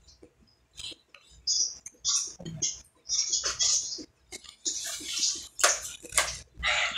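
Close-miked chewing and lip-smacking while eating, wet mouth sounds coming in short irregular bursts with sharp clicks.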